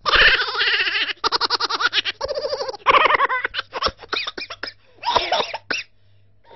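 People laughing in several bursts, mixed with a little talk.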